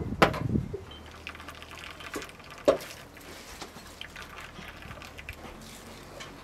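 Juice dripping and trickling into a bowl as grated onion is squeezed by hand, with a few light clicks and one sharp knock near the middle.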